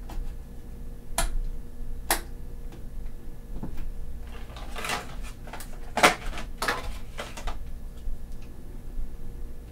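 Sharp plastic clicks and handling noise as RAM memory modules are handled and pressed into a desktop PC's motherboard slots, with the sharpest clicks about one, two and six seconds in.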